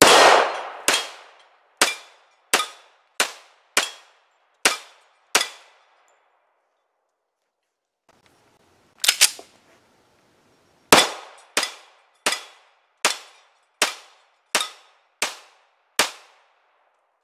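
Magnum Research Desert Eagle 1911G .45 ACP pistol fired in two strings of eight shots, about one shot every 0.7 seconds. Each report is sharp with a short ring-out. A pair of quick cracks falls between the two strings.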